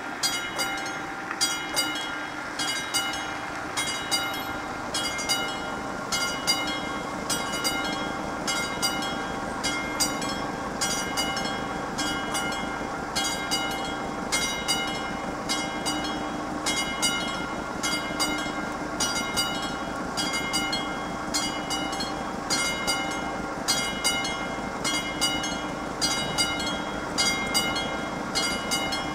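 Classic warning bell of a Czech VÚD level-crossing signal ringing in a steady, evenly repeated series of strikes. Its ringing overtones carry between the strikes. The crossing warning is active for an oncoming train.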